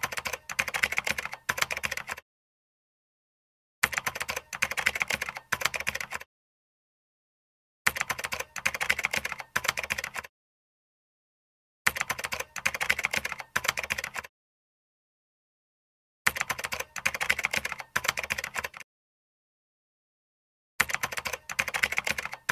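Typing sound effect: rapid keyboard key clicks in bursts of about two seconds, six times, each separated by total silence.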